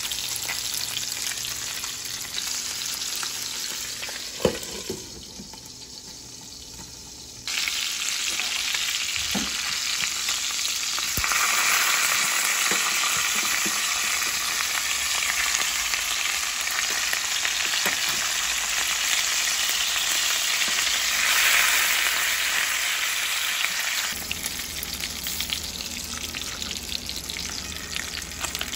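Whole kole fish frying in butter and olive oil in a stainless steel pan: a steady sizzle that grows louder about eleven seconds in. A few light clicks come from metal tongs against the pan as the fish are turned.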